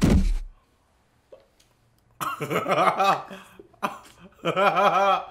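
The tail of a heavy thud fades out at the start. After a short silence, a man laughs in two bursts, about two seconds in and again near the end.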